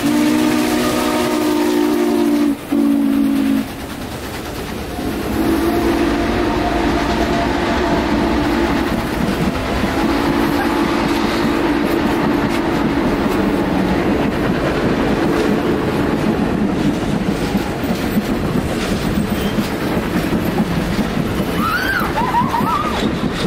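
The steam whistle of Norfolk and Western Class J 611 sounding a chord in long blasts as the locomotive passes: one blast with a brief break stops a few seconds in, and another runs from about five seconds to about fourteen seconds with a short gap. Under and after the whistle, the passenger cars roll by with a steady rumble and wheels clicking over the rail joints.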